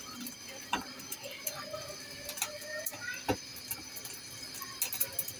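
Chicken feet scorching in a gas burner's flame turned up high: the skin crackles and pops irregularly over the burner's steady hiss, with two sharper snaps, about three-quarters of a second in and again just past three seconds.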